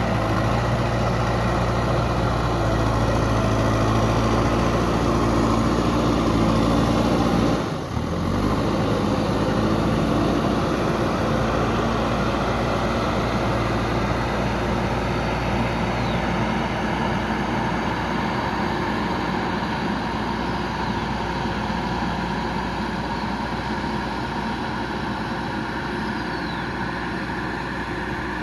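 Diesel engine of a JCB 3DX backhoe loader running steadily at work. It dips briefly about eight seconds in, then fades slowly.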